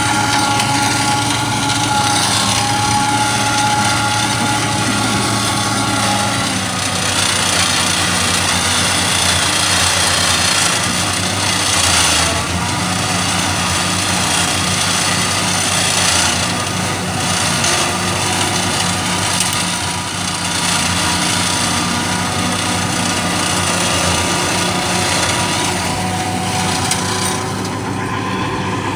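Tractor engine running under load while its rear-mounted PTO flail mower shreds tall grass. A steady drone carries a higher whine whose pitch shifts about six and a half seconds in, over a dense hiss that swells briefly a few times.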